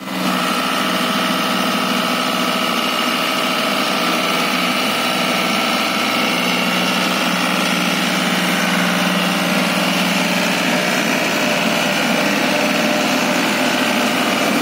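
John Deere tractor's diesel engine running steadily under load while driving a PTO-powered disc harrow with a seed drill attachment.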